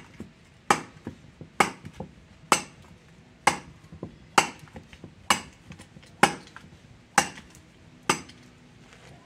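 A kukri blade chopping into a wooden stump: nine hard strikes in a steady rhythm, a little under one a second.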